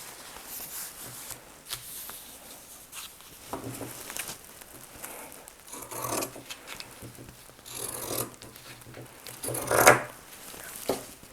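Shears cutting through cotton shirt fabric, with the cloth rubbing and rustling as it is handled: irregular rasping strokes, the loudest near the end.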